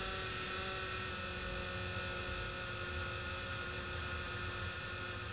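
Induction cooker running at high power under an empty carbon steel wok: a steady electrical hum made of several held tones that does not change.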